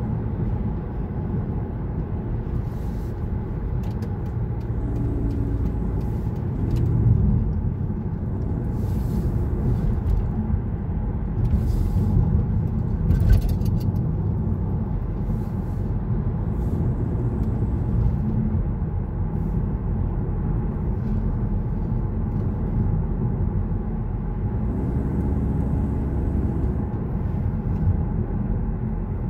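Steady low engine and road rumble of a car driving on a highway, heard from inside the cabin, with a few faint clicks.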